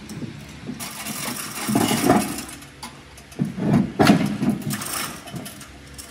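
Hand-pulled chain hoist lifting the planer's heavy table: the chain clatters and clicks through the block in uneven surges as it is hauled.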